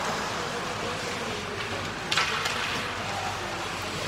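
Ice hockey play on a rink: skate blades scraping the ice and sticks working the puck, with a sharper scrape about two seconds in.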